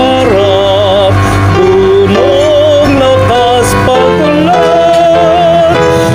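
Tagalog hymn sung with instrumental backing, the singing voice wavering with vibrato over steady chords and bass.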